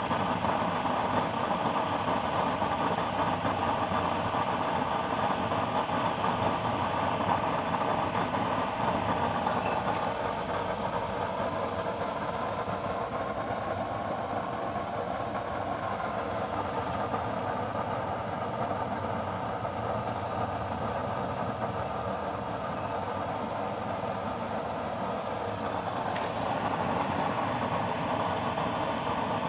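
Used-oil burner stove running with a blue flame: a steady rushing noise, a little quieter through the middle.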